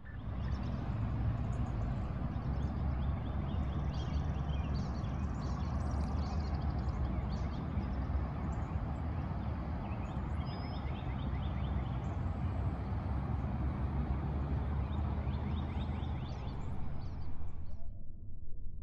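Outdoor ambience: a steady low rumbling wash of noise with birds chirping in short repeated trills over it, cutting off suddenly near the end.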